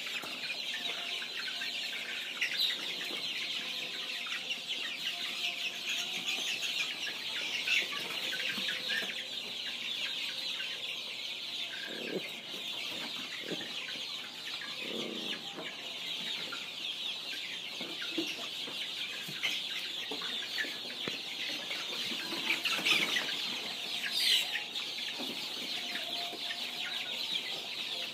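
Dozens of young chicks peeping together in a dense, continuous chorus of high chirps, with a few louder single peeps standing out now and then.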